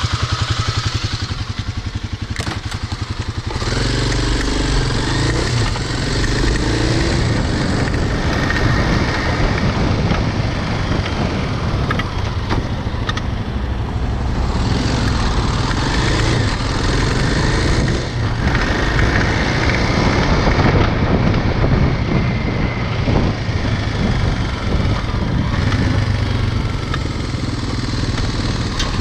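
Motorcycle engine idling, then pulling away about three and a half seconds in and running under way, its pitch rising and falling as the bike rides along.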